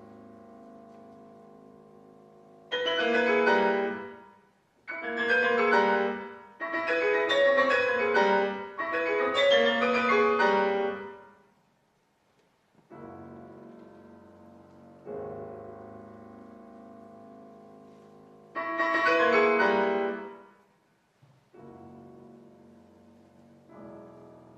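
Grand piano played solo: quiet held chords broken by loud, bright flurries of rapid notes, four flurries close together in the first half and one more later on.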